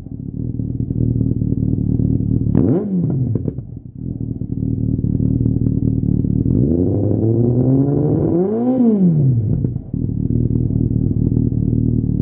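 Yamaha XJR1300's inline-four engine idling through a Lextek GP8C aftermarket silencer. It is blipped once quickly a few seconds in, then revved in a longer climb about halfway through that peaks and drops back to idle.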